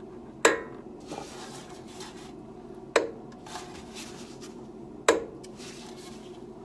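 Three sharp metallic clunks, about two seconds apart, each with a brief ring, as the front steering knuckle of a Mercedes R129 is turned back and forth by hand. They are the steering noise being traced, which an adviser on a Benz forum takes for a worn upper strut mount.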